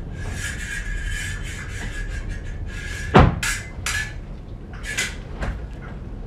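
Stage rapiers clashing and scraping in a sword fight: a quick run of blade contacts, then a heavy thud about three seconds in, the loudest sound, followed by a few separate clinks.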